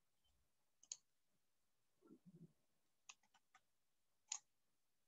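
Near silence with a few faint, short clicks: one about a second in, a quick run of four or five around three seconds, and another near the end, with a soft low thud just after two seconds.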